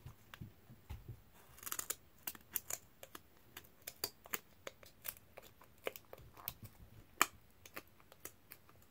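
Scissors cutting a small craft piece: a run of short, irregular snips and clicks, the sharpest a little after seven seconds in.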